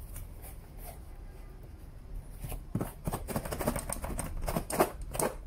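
Cardboard box rustling and scraping as a tightly packed part is worked loose from it by hand. It is faint at first, then a quick run of scuffs and knocks from about halfway.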